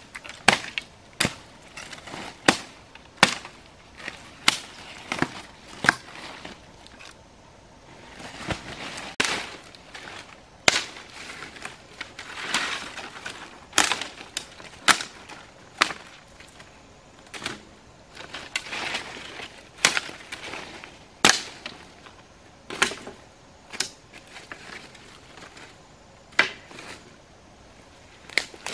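Machete chopping through brush stems and branches: a run of sharp, irregular strikes, about one a second at first, with a few rustling stretches of leaves and branches being pushed aside between blows.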